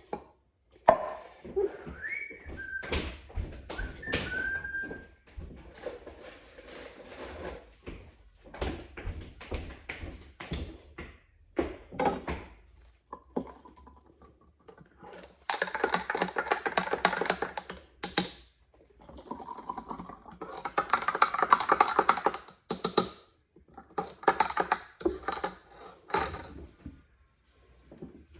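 Knife chopping on a cutting board: scattered knocks at first, then two runs of fast, even chopping of a few seconds each. A couple of short, high rising chirps sound near the start.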